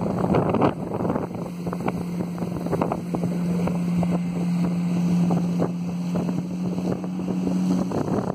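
Mercury 75 hp four-stroke outboard running steadily at high throttle, around 5,500 rpm, driving a pontoon boat at speed. Wind buffets the microphone throughout, and the engine note dips briefly just before the end.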